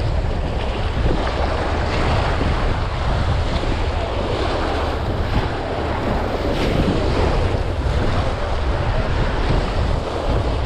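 Wind buffeting the microphone over surf washing against a jetty. It is a steady rushing noise with a heavy low rumble.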